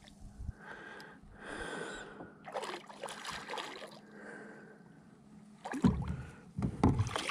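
Hooked channel catfish splashing at the surface beside the boat, mixed with a person's heavy breathing. Loud bumps and knocks near the end.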